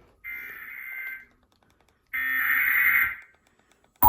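Emergency Alert System SAME header: the last two of its three buzzy digital data-tone bursts, each about a second long with a short silence between, coding an Amber Alert (Child Abduction Emergency). The loud two-tone EAS attention signal starts right at the end.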